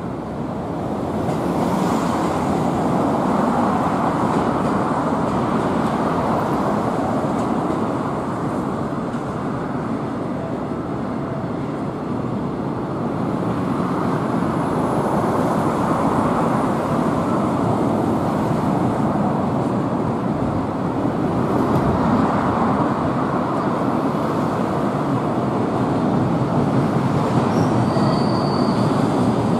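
A long container freight train running past on a railway bridge: a steady noise of wheels on rail that builds in the first couple of seconds and then swells and eases. Brief high-pitched wheel squeals come near the end.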